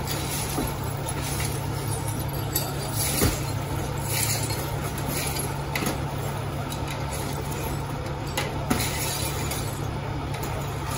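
Broken glass being swept off a car roof with a push broom: scattered clinks and short scraping swishes of glass fragments, over the steady low hum of an idling engine.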